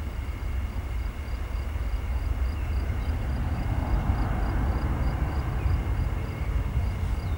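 Low, steady rumble of a Boeing 737-800's CFM56-7B jet engines, swelling slightly about four seconds in.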